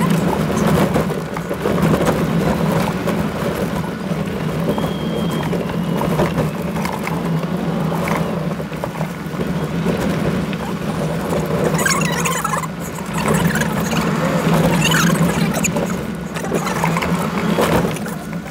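Toyota Land Cruiser driving over a rough gravel track, heard from inside the cabin: a steady engine drone with tyre noise. Clusters of knocks and rattles from bumps come in the second half.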